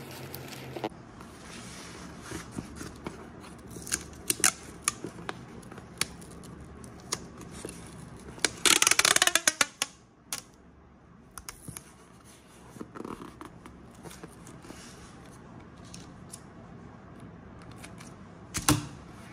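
Cardboard box being folded shut and handled: scattered taps and rustles. About eight and a half seconds in comes a loud tearing rasp lasting about a second and a half, as tape is pulled off and stuck across the flap.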